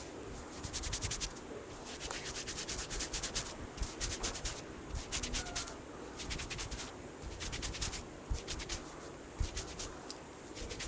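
Barber's hands rubbing briskly over a customer's hair and scalp during a head massage: quick runs of rustling strokes, several a second, broken by short pauses, with a few soft thumps.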